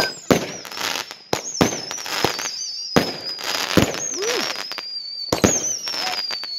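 Fireworks going off: a dozen or so sharp bangs and crackles from bursting shells in quick, uneven succession. A thin, wavering high whistle runs underneath, slowly falling in pitch.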